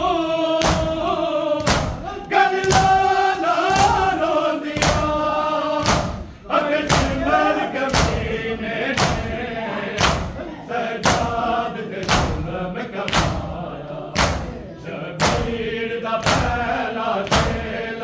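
Male voices chanting a Punjabi noha (mourning lament) together, over a group beating their chests in matam. The strikes land in a steady beat a little under two a second.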